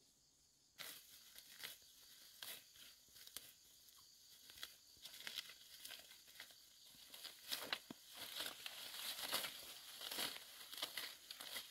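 Weeds and leafy undergrowth rustling and tearing as they are hacked with a machete and pulled up by hand, with irregular crackling strokes starting about a second in.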